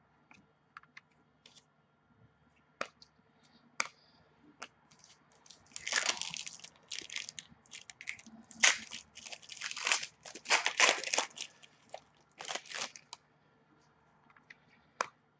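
Crinkling and rustling of plastic as a trading card is handled in a clear plastic sleeve, a dense run of crackly bursts through the middle, with a few light clicks before and after.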